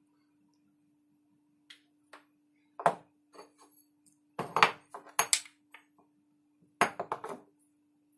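Parts of a disassembled KJ Works M4 gas blowback airsoft magazine clicking and clattering as they are pulled apart, handled and set down on a wooden workbench, in several short clusters of knocks, the loudest about three seconds in and again around five and seven seconds in.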